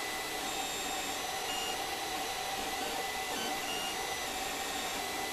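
Creality CR-10 3D printer printing: a steady whir of its fans, with short high whines at changing pitches from the stepper motors as the print head moves.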